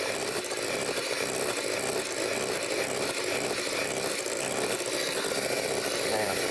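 Electric hand blender running steadily in a glass bowl, blending fish roe while oil is poured in to build the emulsion of a roe spread.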